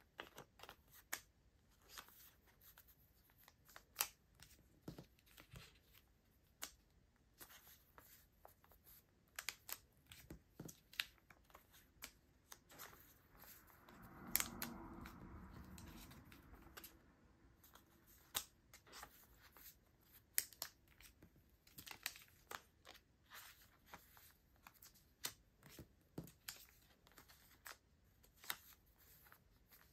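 Clear plastic card sleeves crinkling as photocards are slipped into them, with many small sharp clicks and taps of the cards. About halfway through comes a longer, fuller rustle lasting a couple of seconds.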